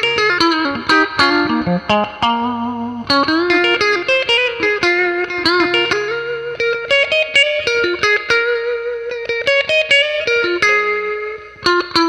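1966 Fender Mustang electric guitar played through a 1977 Fender Princeton Reverb amplifier with both pickups switched out of phase: fast picked notes and chords, with a few wavering, bent notes a few seconds in.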